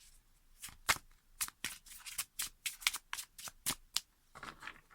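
A deck of tarot cards being shuffled by hand: a run of quick, irregular card snaps and flicks.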